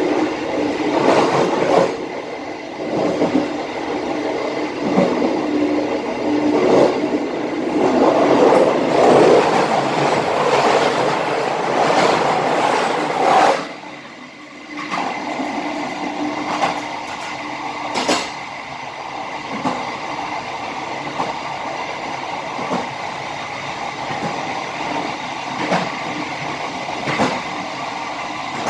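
Passenger train coach rolling along the track, heard from the rear of the train: wheels running on the rails with a steady rumble and rattle and occasional sharp clacks. The sound drops suddenly about halfway through and then runs steadier and quieter.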